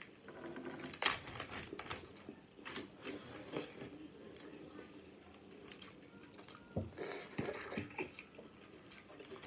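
Crab leg shell cracked apart by hand, with a sharp crack about a second in and smaller snaps after it. Near the end come wet sucking and slurping sounds as sauce-dipped crab meat is pulled from the shell with the lips and chewed.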